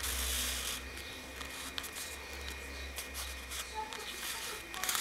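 Fingers handling and rubbing a handmade cardstock card and lifting a paper flap: a burst of paper rustling at the start, then scattered light ticks and taps.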